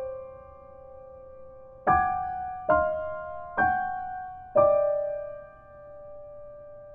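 Slow background piano music: single notes or chords struck about four times, a second or less apart, each left to ring and fade.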